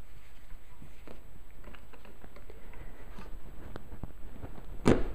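Faint rustling of a folded paper towel and rubber band being handled, then a desktop stapler pressed down: two sharp clicks about half a second apart near the end as a staple is driven through the paper.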